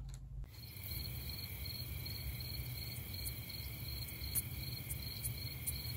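Crickets chirping in a steady, pulsing trill of about three pulses a second, starting about half a second in over a low hum: the stock "crickets" effect for an awkward silence.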